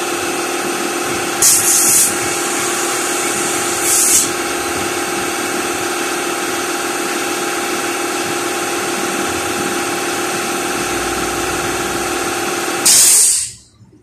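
Air compressor running steadily while air hisses through the hose into a bicycle inner tube, inflating it. Louder blasts of hiss come about one and a half seconds in, again at about four seconds, and near the end, then the sound cuts off suddenly.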